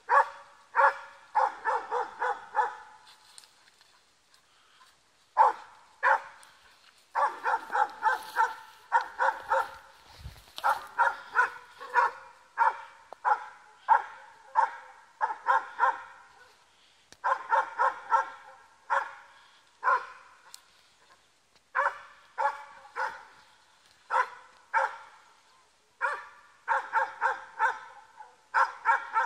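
Catahoula leopard dog barking in quick runs of several barks a second, with short pauses between runs: bay barking at a wild hog held in a training pen.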